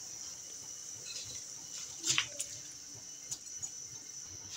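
Spiced stock bubbling at the boil in a pot, with a short splash about two seconds in as rice is poured into the liquid.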